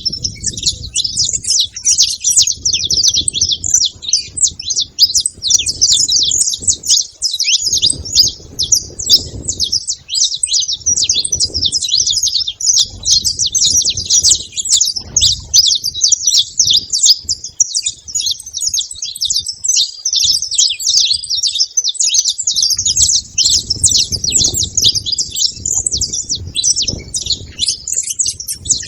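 A group of saffron finches (canário-da-terra) chirping together in a dense, unbroken chatter of high calls, with a low rumble coming and going underneath.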